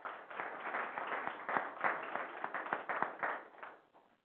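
Audience applauding: many hands clapping at once, fading out near the end.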